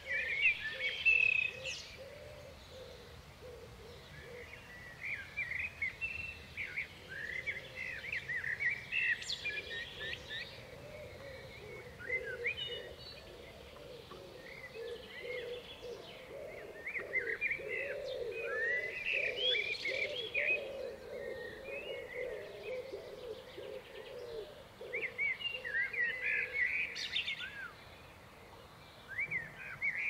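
Small garden songbirds twittering and chirping in bursts of a few seconds, several times over, with a lower wavering sound underneath through the middle.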